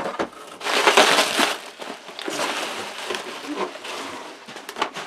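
Bubble wrap and cardboard packaging rustling and crinkling as boxed radios are lifted out of a shipping carton and set down, loudest about a second in, with a few light knocks near the end.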